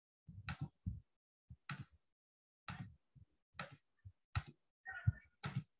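About a dozen short clicks and taps at irregular spacing, the sound of someone working at a computer desk, with a brief faint squeak about five seconds in.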